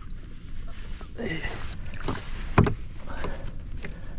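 River water sloshing and splashing as a hand-held fish is let go into the current, with several short splashes, the loudest about two and a half seconds in.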